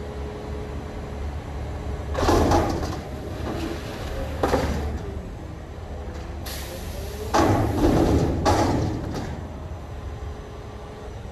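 Garbage truck engine running steadily, with loud bursts of mechanical clatter and hissing about two and four and a half seconds in, then a sharp hiss and a longer noisy stretch from about seven to nine seconds in.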